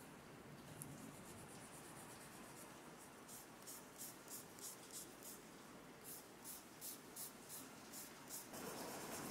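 Nail file or buffer block rubbing back and forth on a plastic press-on nail tip: faint, quick scratchy strokes, about three a second, with a short pause in the middle. Near the end a steadier hiss takes over.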